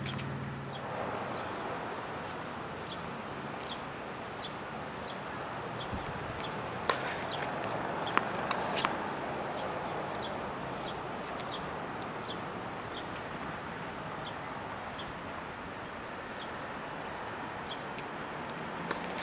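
Tennis ball struck by rackets on a hard court, a few sharp pops about seven to nine seconds in, over a steady outdoor hiss. A small bird chirps repeatedly in the background.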